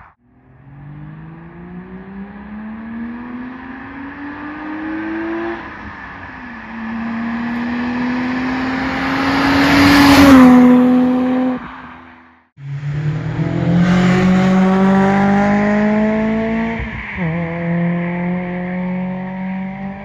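Car engines fitted with equal-length exhaust headers, accelerating hard through the gears. The note climbs, falls at an upshift, then climbs again and is loudest as the car goes by about ten seconds in. After a brief break a second run rises the same way, with another upshift near the end.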